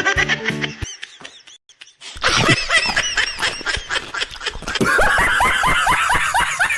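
Rapid, high-pitched laughing chatter, a run of short arching squeals several a second, starting about two seconds in after a short snatch of music and a brief pause.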